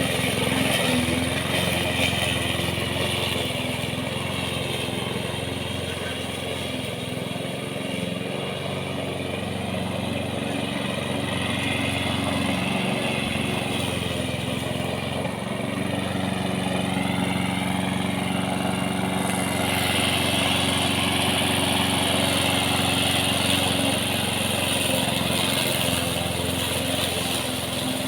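An engine running steadily, its tone shifting slightly about two-thirds of the way through.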